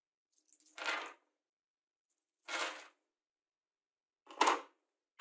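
Three short clinking clatters about a second and a half apart, from a handful of steel acorn nuts and the plywood parts of the rack being handled.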